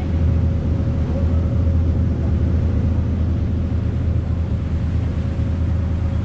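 A tour boat's inboard engine running steadily underway, a constant low drone, with water rushing past the hull.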